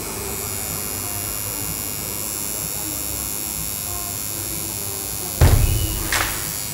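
Steady electrical hum with a faint high whine, with no clear rhythm. About five and a half seconds in, music with heavy drum hits cuts in over it.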